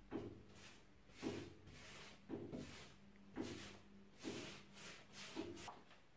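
A wide flat paintbrush scrubbing textured primer onto a wall in crossed strokes: a series of faint, dry swishes, roughly one a second, some coming in quick pairs.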